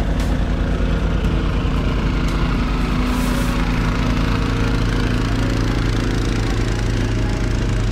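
Boat engine running steadily: an even, low, droning hum with water noise under it.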